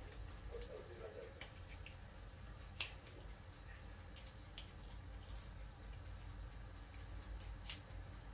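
Faint scattered clicks and handling noises, with one sharper click about three seconds in, from a container being worked at by hand as it refuses to open. A low steady hum runs underneath.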